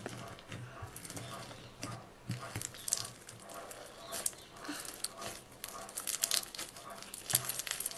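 Orange bead-filled crunchy slime crackling and popping as fingers press into it in its tub and then stretch it apart: many small irregular clicks, thickest near the end.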